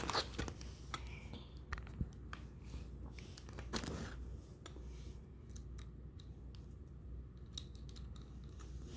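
Dimple rake pick scraping and clicking faintly inside the cylinder of a Bell dimple-key bike lock as it is raked to pick the lock, with scattered light metallic clicks and a few sharper ones.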